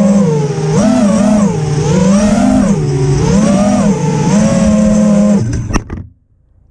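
FPV freestyle quadcopter's brushless motors and propellers buzzing, the pitch rising and falling as the throttle changes. About five and a half seconds in it sets down with a couple of sharp knocks and the motors cut out.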